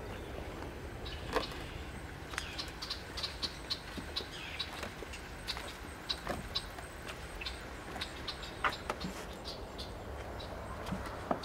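Birds chirping in short, repeated calls over a steady low rumble, with a few sharper knocks of footsteps on wooden boards.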